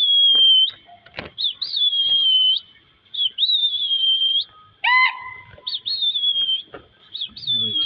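A person whistling shrilly over and over, five long whistles about a second and a half apart, each a quick upward flick and then a held, slightly falling note: a pigeon flyer's whistle to his flock in flight. A deeper call that rises and then holds cuts in once, about five seconds in.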